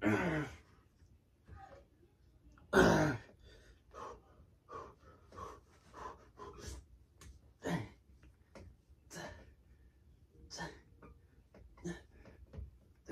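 A man breathing hard in short, repeated exhalations from the strain of one-arm dumbbell rows, with three louder grunts that fall in pitch.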